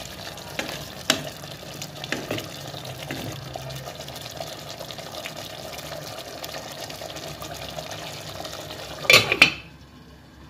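Chicken and potato stew simmering in a steel pot, with a spoon stirring it and clinking against the pot several times in the first few seconds. Near the end a metal lid clatters down onto the pot, and the bubbling goes much quieter under it.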